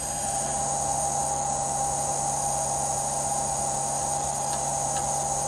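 Steady background drone: an even high-pitched hiss with a constant mid-pitched tone and a low hum beneath it, and two faint clicks near the end.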